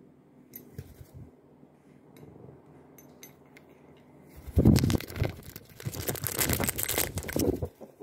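Phone handling noise: loud scraping and rustling of the microphone rubbing against fabric or fingers, starting about halfway in and lasting some three seconds, with a few faint clicks before it.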